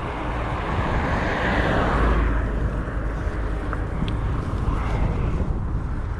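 Headwind rumbling on the microphone while cycling along a highway, with the tyre-and-engine hiss of a passing vehicle swelling about a second in and fading by halfway, and a fainter one near the end.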